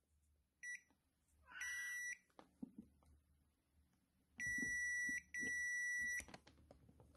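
Digital multimeter's continuity beeper sounding as the probes touch the charger's power-cord conductors: a short chirp, a half-second beep, then two beeps of about a second each with a brief break between them. A steady beep is the meter's sign of an unbroken conductor.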